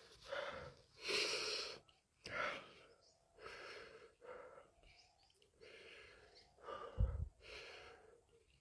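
A man breathing hard in repeated noisy huffs through the mouth, about one a second, while eating Carolina Reaper chillies, the kind of heavy breathing that chilli heat brings on. A short dull thump about seven seconds in.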